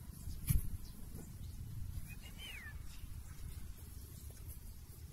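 A short high call from a turkey, two quick arching glides in pitch that fall away, about two seconds in. A sharp knock about half a second in, over a low rumbling noise.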